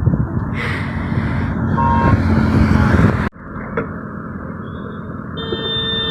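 Road vehicle noise: a steady rumble of a vehicle on the road, broken by an abrupt cut about three seconds in, with a steady horn-like tone near the end.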